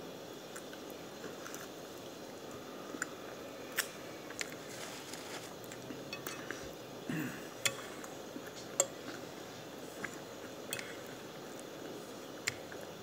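Close-up eating sounds of someone chewing breaded country fried steak: soft wet chewing broken by scattered sharp clicks and smacks.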